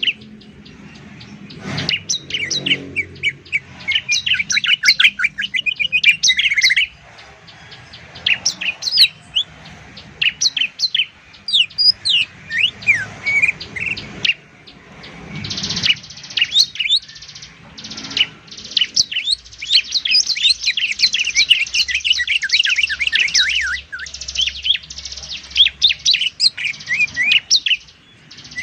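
Caged songbirds singing, a green leafbird (cucak ijo) and a bar-winged prinia (ciblek): fast, unbroken strings of high chirps, whistles and trills in long volleys, with two short lulls.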